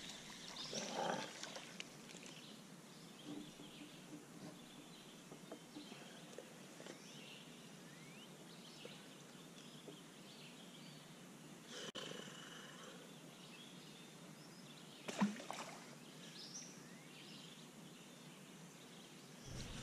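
Quiet lakeside ambience with faint, scattered bird chirps, and small rustles and clicks of a largemouth bass being landed and unhooked by hand. A sharper knock stands out about fifteen seconds in.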